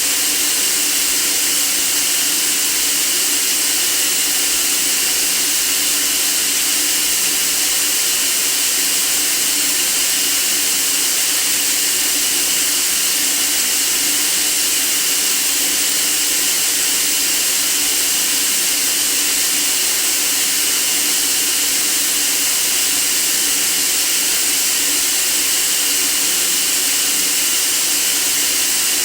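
Steady white noise: an even, unbroken hiss, strongest in the high treble.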